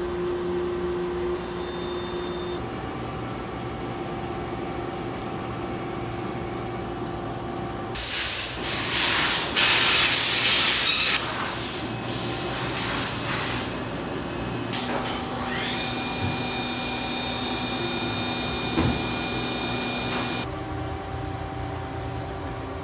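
Machinery running with steady tones: a loud hiss lasting about six seconds, then a machine whine that rises quickly and holds a steady pitch for about five seconds.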